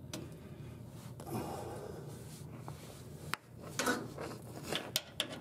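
Small handling noises at a grease fitting on a polyurethane sway bar bushing: faint rubbing and a few sharp little clicks in the second half, as the zerk's cap is pulled off and a grease gun is readied.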